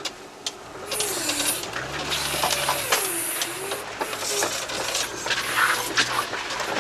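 Wheeled all-terrain vehicle moving through deep snow. Its drivetrain whine rises and falls in pitch over a steady hiss, with frequent clicks and knocks. The noise grows louder about a second in.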